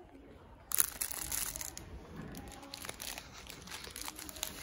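Crinkly wrapper of a ration-pack cranberry cereal bar crackling as it is handled and opened, starting suddenly about a second in and going on in irregular rustles.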